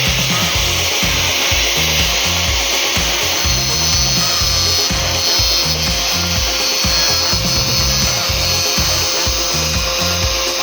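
Angle grinder running steadily under load, cutting metal with a steady whine and a grinding hiss, over background music with a bass line.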